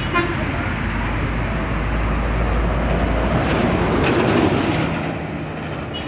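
Intercity coach bus passing on a highway, with engine and tyre noise, and a short horn toot just after the start. The engine noise swells about four seconds in.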